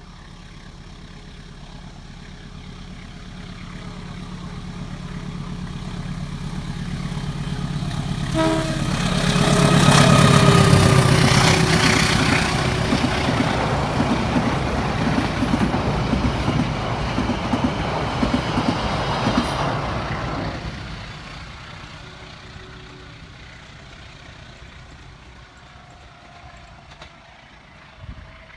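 Diesel-electric locomotive-hauled passenger train passing. The locomotive's engine hum grows louder to a peak about ten seconds in. A rumble of carriage wheels on the rails follows until about twenty seconds in, then dies away.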